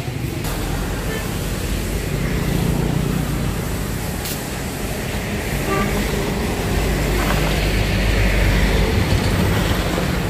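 Street traffic: motorbike and truck engines passing on the road, a continuous rumble that swells louder near the end.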